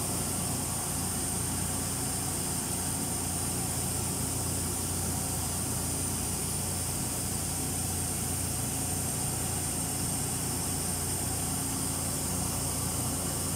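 An engine running steadily: a constant low hum with a steady high whine above it.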